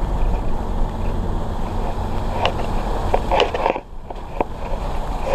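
Vehicle driving over a snow-covered track, heard from inside: a steady low rumble with a few short knocks and crackles around the middle, briefly dropping in level about four seconds in.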